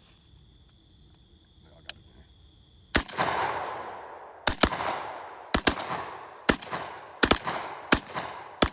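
Semi-automatic gunfire: about ten shots starting some three seconds in, fired singly and in quick pairs, each followed by a long echoing tail.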